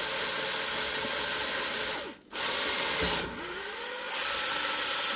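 Electric drill boring a roughly 7 mm hole in a snowboard binding part. The motor stops briefly about two seconds in, then starts again with its pitch rising as it speeds up, and cuts off near the end.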